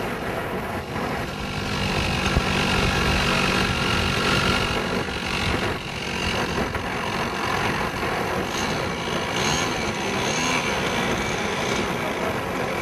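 Small model-airplane engine and propeller running on the ground, its pitch wavering up and down a little past two-thirds of the way through.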